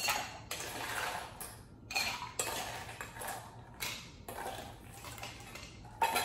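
Ice cubes scooped with a metal spoon from a metal bowl and dropped into a steel cocktail shaker tin: irregular clattering and clinking of ice and spoon against metal, in several bouts.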